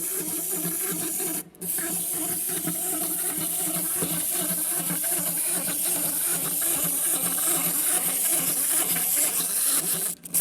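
A small fidget toy's mechanism running on its own with a rapid, wobbling whir. It cuts out briefly about a second and a half in, then runs on and stops near the end.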